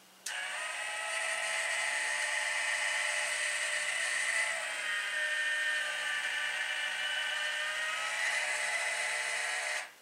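Woodland Mills (Grindlux) bandsaw blade sharpener's grinding motor running, powered from the sawmill's small battery, and running slower than usual because of it. It starts up just after the start as a steady whine, dips slightly in pitch for a few seconds midway, and cuts off just before the end.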